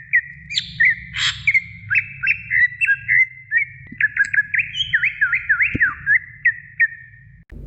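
Cucak ijo (leafbird) singing: a fast run of short whistled notes sweeping up and down, several a second, with a brief harsh chirp about a second in. The song stops abruptly near the end.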